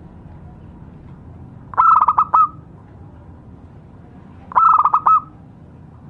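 Zebra dove (perkutut) cooing: two short phrases, each a quick run of four or five clipped notes, about three seconds apart.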